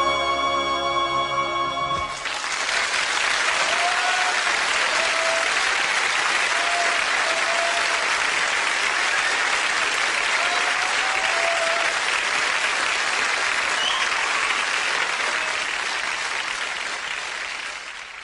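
The music ends on a held chord about two seconds in. An audience then applauds steadily, and the applause fades out near the end.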